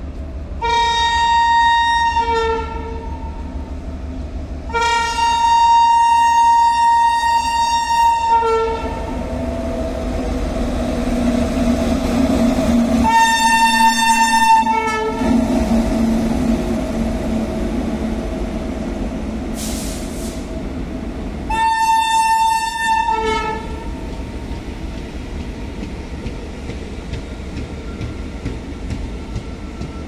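A WAG-9 electric locomotive sounds four loud, long horn blasts, the second about four seconds long, warning people crossing the tracks. Between the blasts the locomotive's running noise swells as it draws alongside, then the empty coaches roll past.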